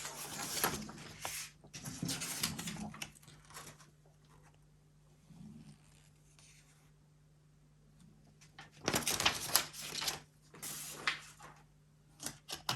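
Packaging rustling and crinkling in two bursts as a keyboard box is unpacked, with a quiet stretch between them and a few small clicks near the end. A faint steady low hum runs underneath.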